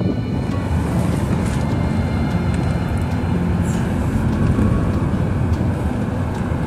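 A car driving along, a steady low rumble of road and wind noise.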